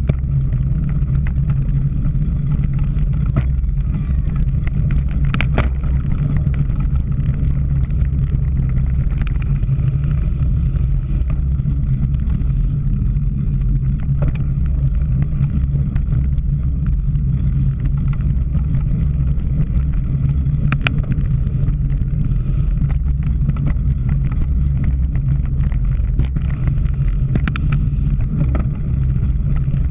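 Steady low wind rumble on a camera microphone carried on a cyclocross bike at racing speed, with a few sharp clicks and rattles from the bike over rough ground.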